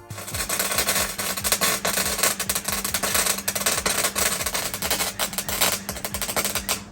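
Welding arc crackling steadily as a replacement steel floor pan is welded into a car body, then cutting off suddenly at the end.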